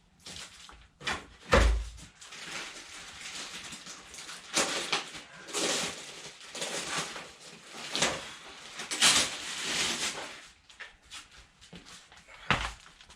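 Clatter from handling brake parts and tools: a heavy thump about one and a half seconds in, then scattered knocks and clicks with several scraping, rustling passes.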